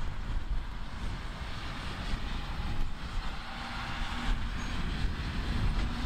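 John Deere 8400R tractor's six-cylinder diesel running steadily under load as it pulls a wide strip-till implement through the field, with a faint steady hum joining about halfway through.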